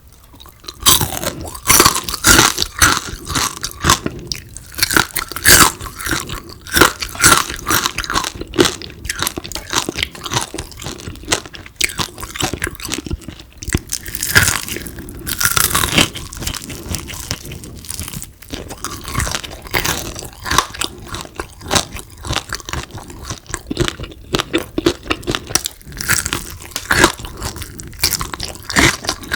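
A person biting and chewing crispy fried frog, with crunches coming one after another in an irregular run.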